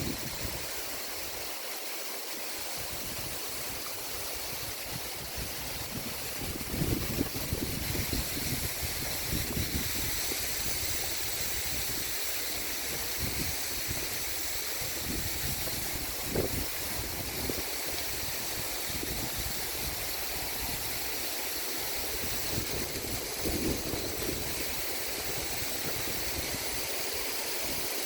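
Steady rush of a waterfall's falling water, with low gusts of wind buffeting the microphone now and then.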